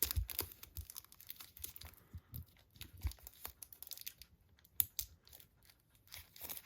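Plastic wrapping being torn and crinkled by hand, in irregular crackles and rustles.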